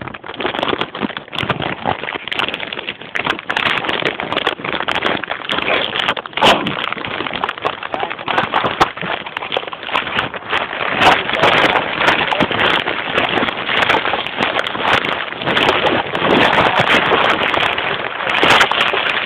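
Continuous loud rustling and crackling of a covered phone microphone rubbing against fabric, with many sharp clicks throughout.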